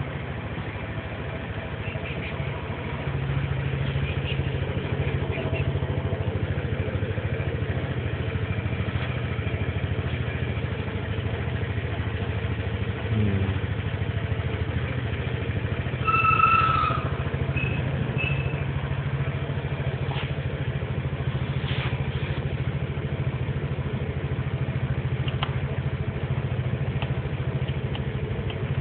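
Vespa GTS 250 scooter's single-cylinder four-stroke engine idling steadily while it warms up. About halfway through, a short high whistle-like tone sounds briefly over it.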